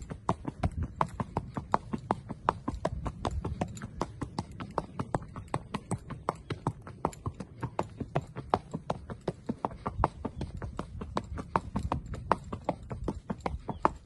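A horse's hooves clip-clopping in a steady, even rhythm along a dirt track, with a low rumble underneath.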